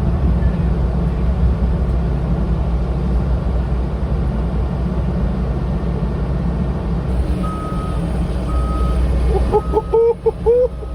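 A truck engine running steadily under the tire lift, with a short high beep repeating about once a second from about seven seconds in. Near the end, a few short wavering hoot-like calls.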